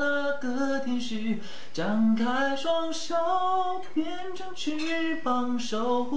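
A young man singing a Mandarin love ballad unaccompanied, holding long notes with small slides between them.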